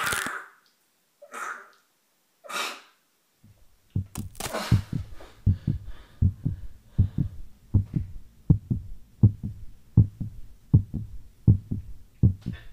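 A man's short, sharp screams and gasps, three of them in the first few seconds. From about four seconds in, a low heartbeat sound effect thuds steadily in lub-dub pairs, roughly every 0.7 s.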